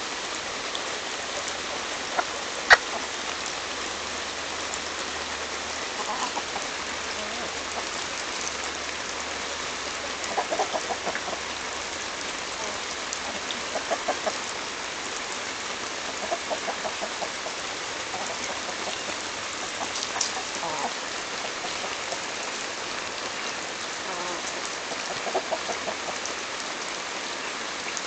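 Chickens clucking in short bursts every few seconds as they peck corn from a cob held in the hand, over a steady hiss. There is one sharp click about three seconds in.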